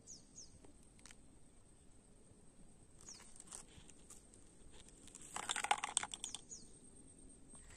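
Faint crinkling of plastic bags and sheeting and small clicks as hands work ground-bait onto a fishing bait ball, with a louder burst of rapid crinkling and clicks about five and a half seconds in. A few short bird chirps and a thin, steady high tone run underneath.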